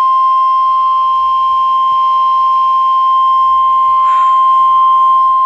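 NOAA Weather Radio's 1050 Hz warning alarm tone: one loud, steady, unbroken tone that signals an incoming weather alert. A brief hiss rides on it about four seconds in.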